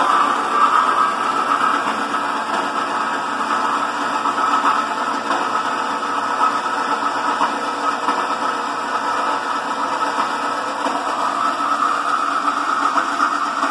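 Horizontal metal-cutting band saw running, its blade feeding slowly down through an aluminum gutter section. The whir and cutting hiss hold steady throughout.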